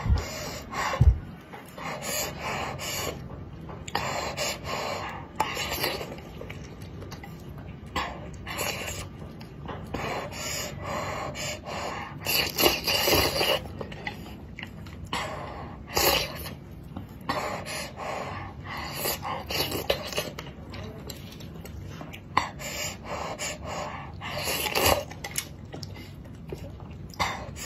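Close-miked mukbang eating sounds: slurping and chewing spicy dumpling soup, with wooden chopsticks knocking and scraping in a clay pot. The noises come in irregular bursts.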